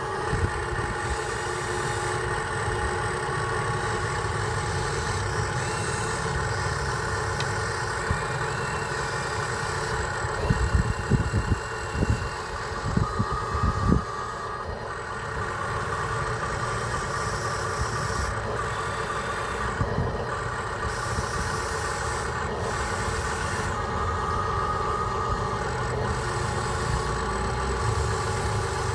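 Remote-control truck running with a steady engine-like drone, with a cluster of knocks and thumps about ten to fourteen seconds in.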